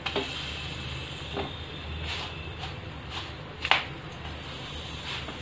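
Oiled thepla flatbread roasting on a flat griddle with a soft hiss, pressed down and scraped by a stainless-steel spatula, with a few light taps and one sharp metal clink a little past halfway.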